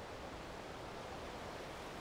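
Steady wash of Gulf surf on the beach, mixed with wind.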